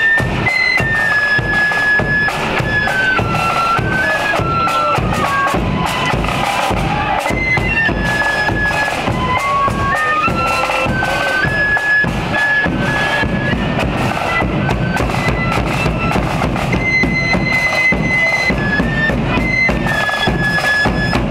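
Pipe band playing in a street parade: bagpipes carry a stepping melody over steadily beating drums.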